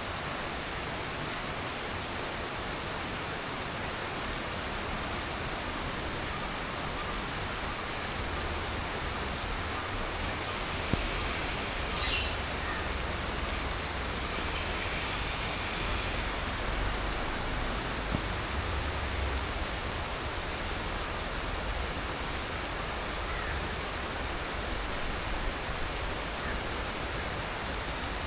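Heavy tropical monsoon rain falling steadily. A low rumble swells and fades in the middle.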